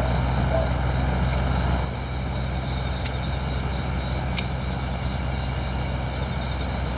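Electric desk fan running with a steady motor hum and whir, dropping in level about two seconds in. A couple of faint ticks sound later.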